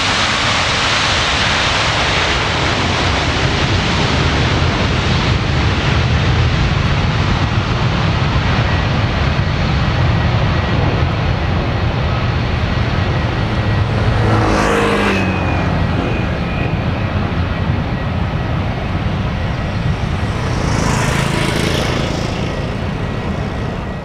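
Jet engines of a Boeing 767-300 airliner running as it rolls out on the runway after landing, spoilers up: a loud, steady rush of engine and rolling noise. A brief tone falls in pitch about two-thirds of the way through.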